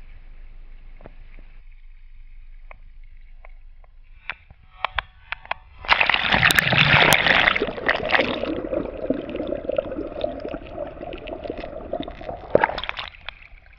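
Lake water lapping and splashing at a camera held at the surface, with scattered small splashes, then a loud gush and gurgle as it plunges underwater about six seconds in. Underwater the sound turns muffled with a steady hum, until a splash as it breaks the surface again near the end.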